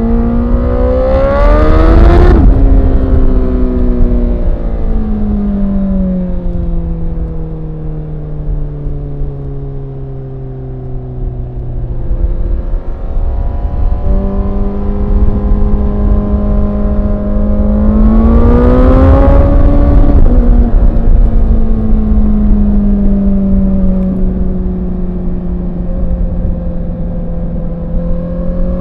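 Honda CBR1000RR SP's inline-four engine under hard acceleration, its pitch climbing steeply, then winding down in long falling glides with a few stepped drops as the bike rolls off and slows. This happens twice, with the engine picking up again near the end.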